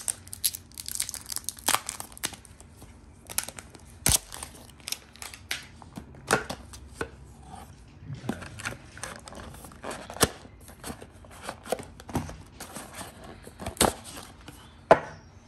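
Protective plastic film being peeled off a new smartphone, crackling and crinkling, with cardboard packaging handled and rustling alongside. The sound is a string of irregular sharp crackles and clicks.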